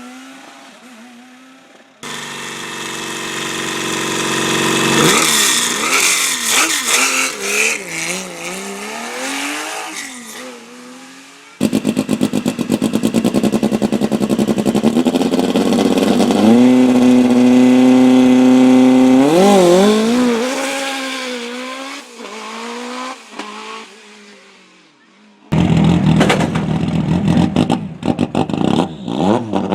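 Rally car engines at stage starts, one car after another: each is held at high revs, then launches away, its pitch climbing and dropping through quick gear changes. The sound cuts abruptly from one car to the next three times.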